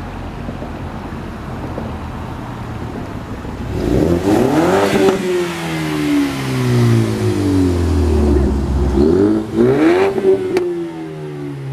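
2015 Ford Mustang EcoBoost's turbocharged 2.3-litre four-cylinder, with a muffler delete and a glasspack in place of the resonator, idling and then revved twice, about four seconds in and again near ten seconds. Each rev climbs quickly and the revs fall slowly back, with one sharp crack from the exhaust shortly after the second rev.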